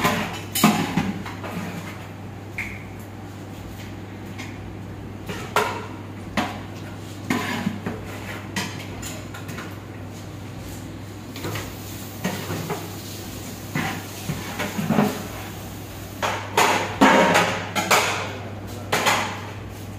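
Large aluminium cooking pots and a metal ladle clanking and scraping as chicken masala is ladled out and the pot is tipped to layer it over rice, in scattered knocks that come thickest near the end. A steady low hum runs underneath.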